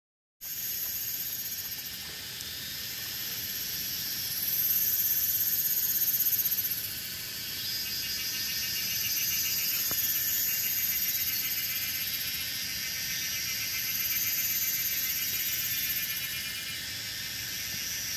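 Forest insect chorus: a high, steady hiss with a fast pulsing texture. It cuts in just after the start, swells louder about five seconds in, and swells again near fifteen seconds.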